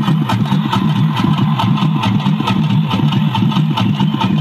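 Loudspeaker soundtrack of a sound-and-light show: a fast, even pulsing rhythm over a low drone, running straight on from the guitar music before it.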